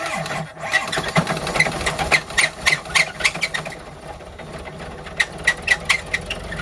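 Engine running with a repeating sharp chirp, about three to four a second, that pauses for a moment in the middle and comes back near the end; the fan belt is suspected as the source of the noise.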